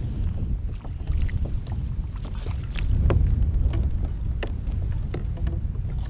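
Wind buffeting the microphone in a steady low rumble, with about half a dozen sharp splashes and knocks as a small fish thrashes at the surface beside a kayak and is scooped up in a landing net.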